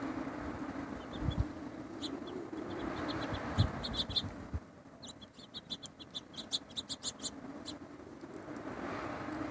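Small birds chirping: scattered short high chirps, then a quick run of about five chirps a second from about five to nearly eight seconds in. Under them is a steady low hum with a rushing background that swells and fades, and two low thumps come in the first four seconds.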